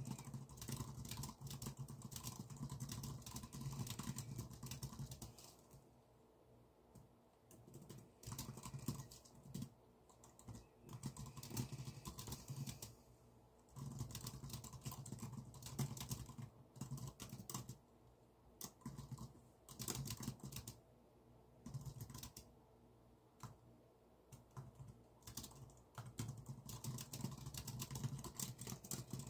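Typing on a computer keyboard: rapid runs of keystrokes broken by short pauses of a second or two.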